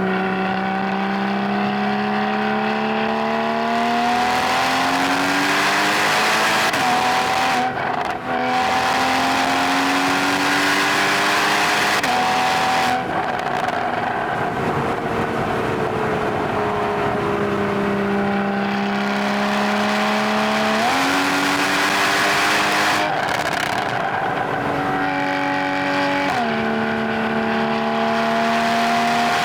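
Porsche 981 Boxster GTS's 3.4-litre flat-six engine pulling hard. The pitch climbs for several seconds at a time as it accelerates, drops back when it slows, and jumps sharply in revs several times at gear changes.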